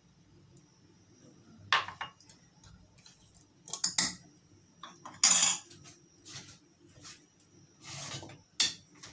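A metal spoon clinking and scraping against a stainless steel pot in several separate strokes, the loudest a short scrape a little after the middle.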